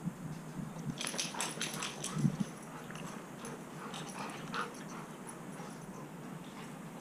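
Two dogs playing on a lawn, faintly heard: dog noises with scuffling, and a cluster of rustles and clicks between about one and two and a half seconds in.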